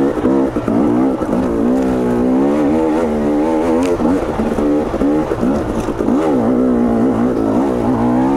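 KTM 250 XC two-stroke dirt bike engine under way, its note rising and falling again and again as the throttle is worked.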